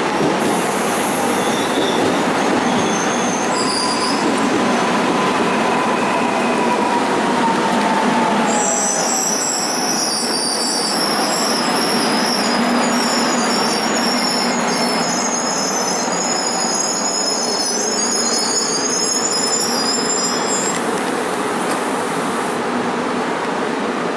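Korail Line 1 electric multiple unit rolling along the platform and slowing, with a faint falling motor whine in the first seconds. High-pitched wheel and brake squeal sets in about a third of the way in and stops a few seconds before the end.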